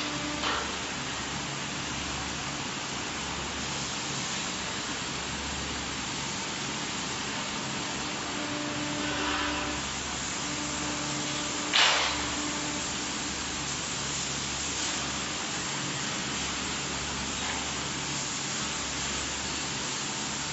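Press brake running with a steady hiss and a low hum that comes and goes while it bends a steel conical pole. Two sharp metal clanks sound, a small one just after the start and a louder one about halfway through.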